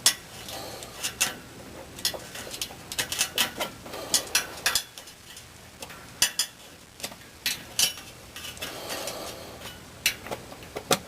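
Steel hemostat clicking and clinking against a metal outlet box inside a wall as it fishes out dead-bird remains: irregular sharp metallic clicks, some in quick runs.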